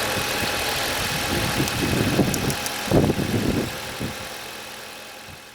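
Vehicle engine idling steadily after being jump-started from a dead battery, fading out near the end.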